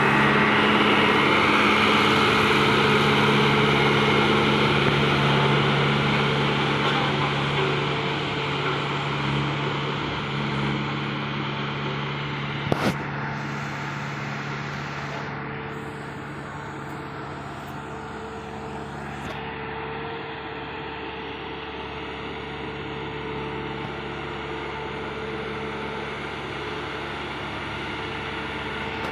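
Diesel engine of a JCB VMT 860 tandem road roller running steadily, getting gradually quieter about halfway through. A single sharp click comes about thirteen seconds in.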